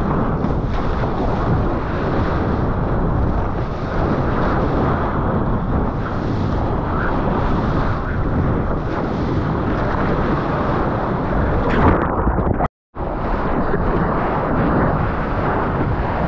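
Steady, heavy rush of wind and surf buffeting a GoPro's microphone, a dense low rumble. About three-quarters of the way through, the sound drops out completely for a moment.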